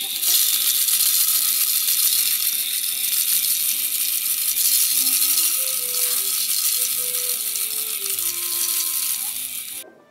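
Background music: a soft melody with a bass note about once a second, under a loud, steady, shaker-like hiss. It all cuts off suddenly just before ten seconds.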